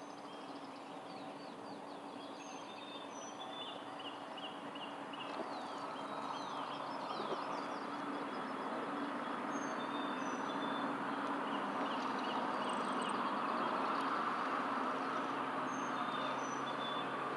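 Small birds chirping and whistling again and again over a steady background hum and rush that slowly grows louder.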